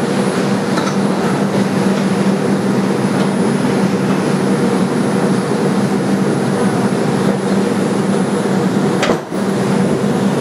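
Inside a stopped 2001 Bombardier R142 subway car: a steady hum from the car's air conditioning and auxiliary equipment, with a low tone that holds level. A brief knock comes about nine seconds in.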